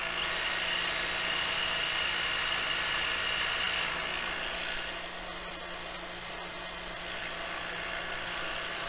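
A DeWalt 12V cordless drill spinning a tungsten electrode against the running belt of a Delta bench grinder's belt-sander attachment, grinding the tip to a pencil point. A steady whine from the spinning drill with a grinding hiss over the grinder motor's hum; the grinding eases about four seconds in.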